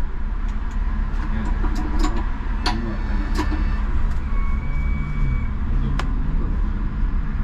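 Škoda 39T tram running, heard from inside the vehicle: a steady low rumble with scattered sharp clicks and knocks, and a brief high tone about four seconds in.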